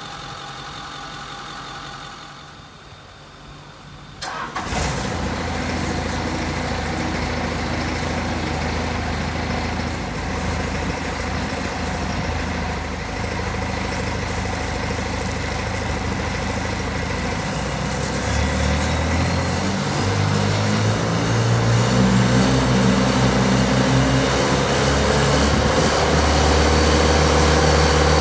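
John Deere 4045TF four-cylinder turbo diesel of a jetter body, driving its high-pressure triplex water pump. After a quieter first few seconds, the engine sound starts abruptly about four seconds in and runs steadily. It climbs in speed and loudness about two-thirds of the way through, with a rising whine, and is louder again near the end as the jet sprays water.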